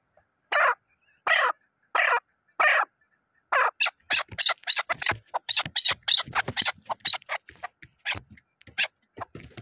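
Chukar partridge calling: four evenly spaced short notes, then a quick run of many notes crowding together.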